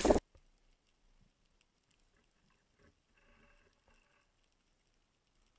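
Near silence, after a brief burst of fishing-boat deck noise that cuts off suddenly a fraction of a second in.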